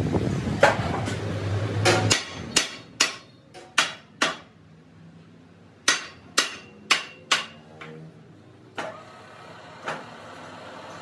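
Hammer blows on a steel truck wheel rim clamped in a lathe chuck: about a dozen sharp, ringing strikes in two groups. The lathe is running at the start, stops about two seconds in, and starts running again near the end.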